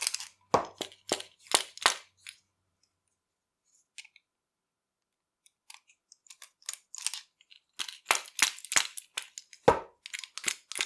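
Small metal tools clicking and tapping against a steel round-body padlock while a screwdriver is worked at the screw holding its core, which will not come out. A quick run of sharp clicks, a pause of about three seconds, then more clicks.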